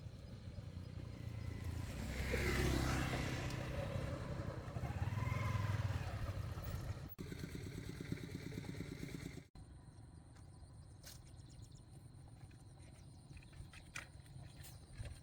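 A motor vehicle engine, likely a passing motorbike, swells in level for a few seconds, then drops away at an abrupt cut. It is followed by quieter outdoor background with a steady high tone and scattered light clicks.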